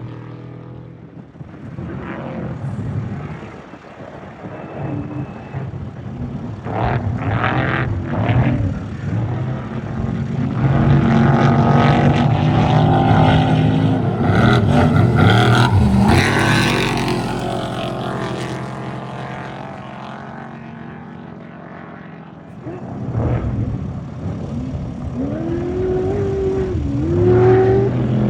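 Off-road race vehicles passing at speed with engines revving. One gets louder up to a peak around the middle and then fades, its pitch dropping as it goes by. A second one comes up near the end, revving up and down.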